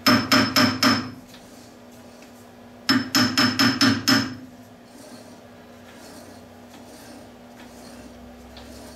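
Copper-faced hammer tapping a phenolic gear blank held in a lathe chuck: two quick runs of five or six sharp taps each, a couple of seconds apart. The blank is being knocked over to cut its runout, read on a dial test indicator.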